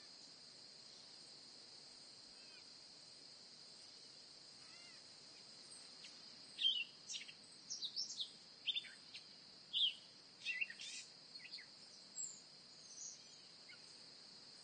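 Nature ambience: a steady high-pitched insect drone, with a run of quick, sharp bird chirps from about six seconds in until shortly before the end.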